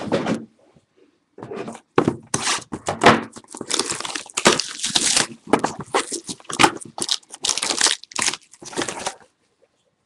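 Sealed trading-card boxes being torn open and the packs pulled out, giving a run of irregular tearing, crinkling and crunching of cardboard and wrapper. It starts in earnest about two seconds in and stops shortly before the end.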